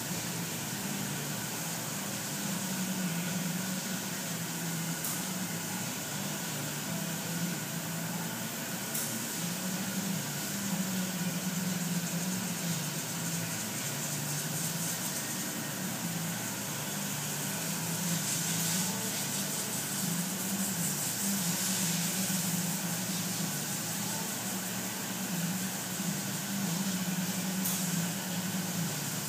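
Steady machine hum with a hiss, with no changes in level throughout.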